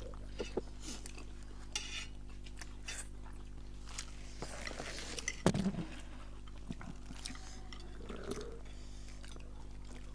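Eating sounds: a spoon or chopsticks clicking against a bowl of ramen, with quiet chewing. There is a louder short sound about five and a half seconds in.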